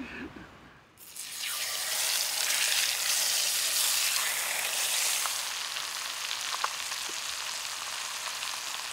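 Brown trout fillets sizzling in a hot cast-iron skillet, the sizzle starting about a second in as the fish goes into the pan. It is loudest for the first few seconds, then settles a little, with a few small pops.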